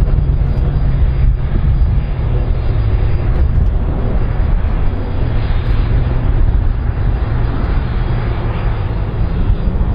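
Airbus A310-304 airliner's jet engines running steadily as it moves along the ground, a continuous roar with a heavy low rumble.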